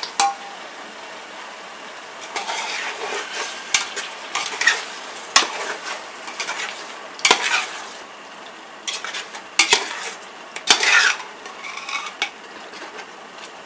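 Metal ladle stirring paneer cubes into thick masala in an aluminium pot, scraping and knocking against the pot's sides and bottom every second or two, over a steady sizzle of the simmering gravy.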